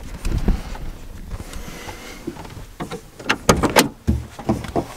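Knocks and clunks of a Ford Transit Connect van door being worked, with a cluster of sharp clicks about three and a half seconds in and a low thud just after.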